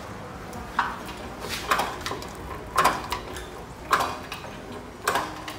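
Metal hoist chain clanking in short bursts about once a second as an engine is lowered on it.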